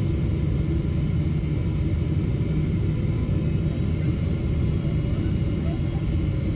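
Steady low rumble of a jet airliner's engines and rushing air heard inside the passenger cabin during the descent to land, with faint steady whining tones above it.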